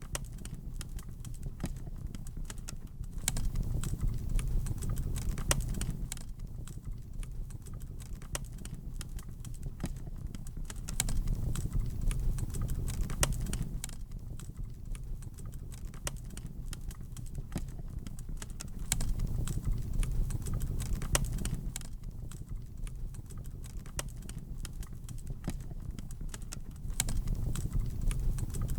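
Fireplace fire crackling, with many quick sharp pops and ticks, over a low rumble of flames that swells and fades about every eight seconds.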